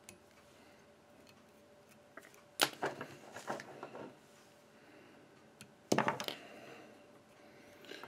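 Small metal fly-tying tools clinking on the bench: the whip-finish tool laid down and the thread trimmed off, in two short clusters of clicks about two and a half and six seconds in.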